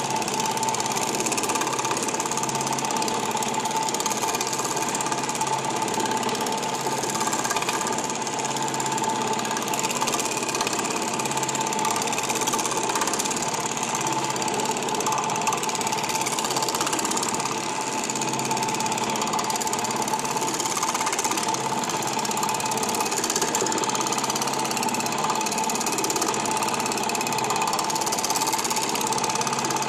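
Reciprocating power hammer with an edge shrink die hammering rapidly and steadily on the edge of a sheet-metal piece, shrinking the metal. The strikes run without a break, with a steady high tone through them.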